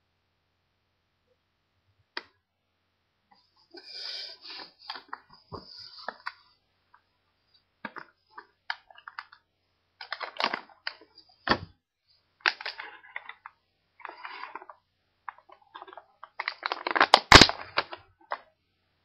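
Toy packaging being handled and opened: irregular crinkling, crackling and sharp snaps of plastic and card, starting about two seconds in, with the loudest flurry of snaps near the end.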